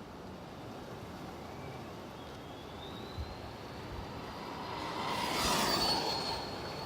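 High electric whine of a Traxxas Rustler VXL RC truck's 3500 kV four-pole Velineon brushless motor, rising in pitch as the truck speeds up. It gets loudest about five to six seconds in, with a rush of tyre and air noise, then holds a steady high note.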